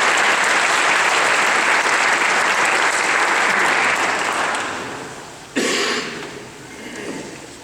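Audience applauding, the clapping dying away from about four seconds in; then a single brief, loud bump about five and a half seconds in.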